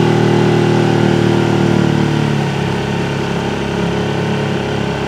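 Yamaha 5 hp petrol outboard running at speed with a steady engine note, driving a small dinghy at about 6 knots. About halfway through, the note eases and gets a little quieter.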